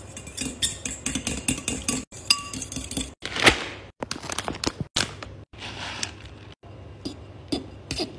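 A metal fork beating raw egg yolks in a bowl, clinking quickly against the side. Then a plastic packet of grated Parmigiano Reggiano rustles as it is handled and tipped out, with a few more clinks near the end.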